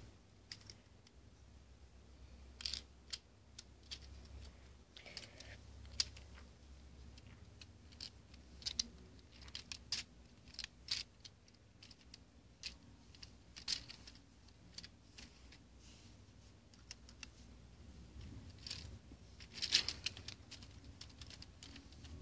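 Irregular light plastic clicks and rattles from a Lego Technic toy gun being handled and turned in the hand, with a louder cluster of clicks near the end.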